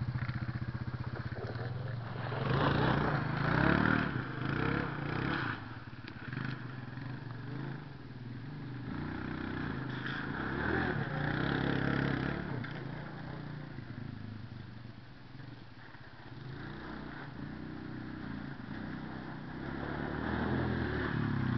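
Quad ATV engine running and revving as it is ridden. It is loudest in the first few seconds, fades as the quad moves off into the distance, and grows louder again near the end as it comes back.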